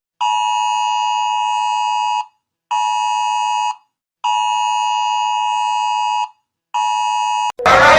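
Emergency alert alarm tone: a steady electronic buzzer-like tone sounding in on-off pulses, long, short, long, short. Just before the end a loud siren cuts in, wailing upward.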